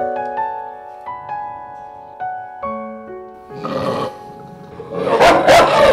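Soft piano music, broken twice by a Chow Chow's aggressive growling: a short burst about three and a half seconds in, and a louder, longer one near the end.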